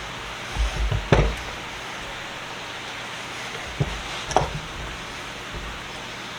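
A few light knocks and clunks of handling, one about a second in and two close together around four seconds, over a steady background hiss.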